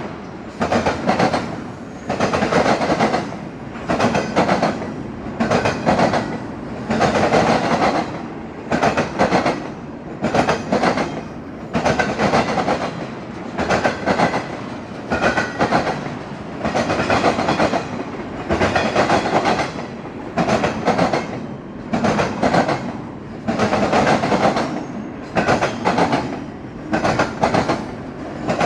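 Intermodal freight train cars rolling past at close range, the wheels clacking over rail joints in loud, rhythmic surges about every second or two.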